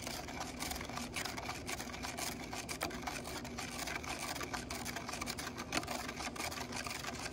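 Wooden spoon stirring a baking soda and water mixture in a clear plastic cup, with a steady run of light scrapes and ticks against the cup.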